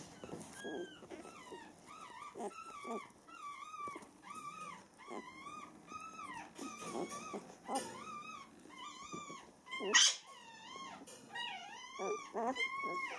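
Week-old beagle puppies whimpering and squeaking, a steady run of short high calls that rise and fall, about two a second. A short loud knock about ten seconds in.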